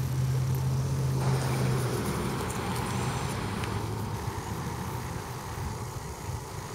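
A steady low motor hum over constant outdoor background noise, louder in the first two seconds.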